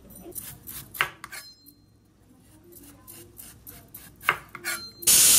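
Kitchen knife cutting vegetables on a wooden cutting board, giving a few sharp knocks of the blade against the board. Near the end a loud, steady hiss starts suddenly.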